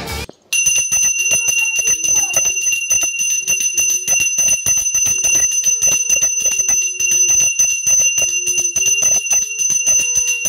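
Puja hand bell (ghanti) rung rapidly and without pause: fast, even clapper strikes over a steady high ring. It starts about half a second in.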